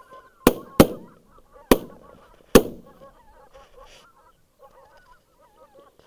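Four shotgun shots in the first three seconds, the first two close together, over the continuous honking of a flock of geese.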